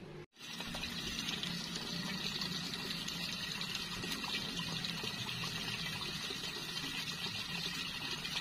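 Steady trickle of shallow running water, a constant even rush with a hiss on top.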